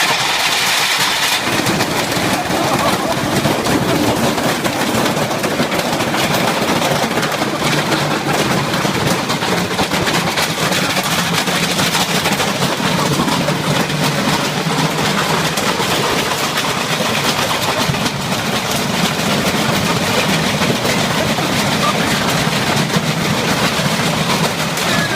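A loud, steady machine noise with no clear rhythm or pitch.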